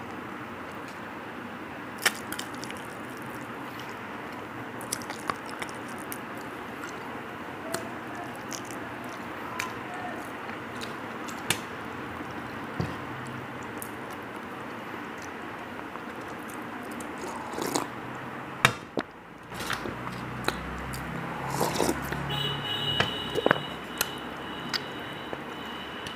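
Hand-eating sounds: scattered soft clicks and smacks from chewing and licking fingers, over a steady hiss, with one sharper knock about two-thirds through.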